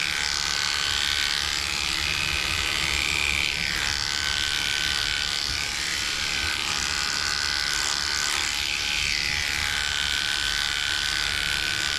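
Electric dog grooming clippers with a comb attachment running steadily, a continuous buzz whose tone wavers slightly as the blade skims through the dog's facial hair.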